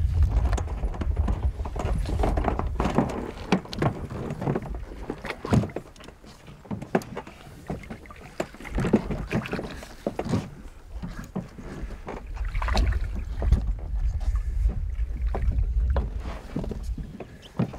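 Small, irregular splashes of lake water lapping and slapping against the side of a boat, with wind rumbling low on the microphone at times.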